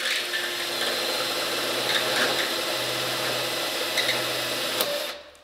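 AEG cordless drill turning a spot weld cutter, cutting out a spot weld that holds a sheet-steel headlight pot to a car fender. The motor runs at a steady pitch under the sound of the cutting, and both stop suddenly near the end.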